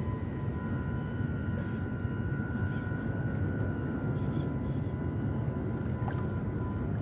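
Radio-controlled model boats running on the water: a steady low rumble with a thin, even motor whine over it.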